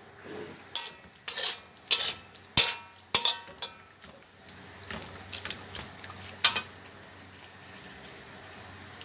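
Metal spatula scraping and clanking against a metal wok while stir-frying chicken pieces, with a faint sizzle of oil underneath. The clatter is busiest in the first four seconds, with a few more knocks later and one last loud one about six and a half seconds in.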